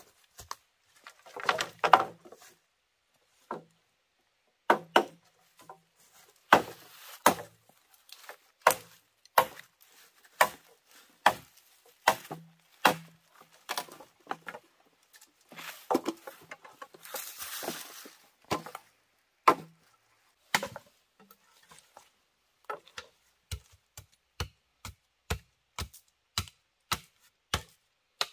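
A blade chopping into wood in sharp, separate strokes, unevenly spaced at first, with a couple of seconds of noisier rustling partway through. Near the end the strokes settle into a quick, steady rhythm of about three a second.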